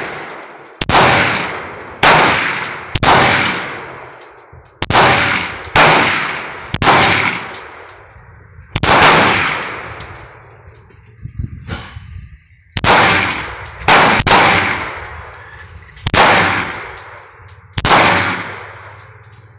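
Glock 17 9mm pistol firing a steady string of about fifteen shots, roughly one a second, with a short break in the middle. Each shot rings out with a reverberant echo.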